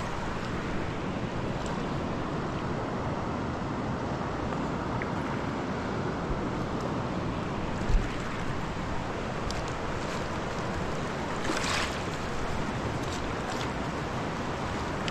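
Big river rushing, a steady wash of water noise, with a single low thump about halfway through.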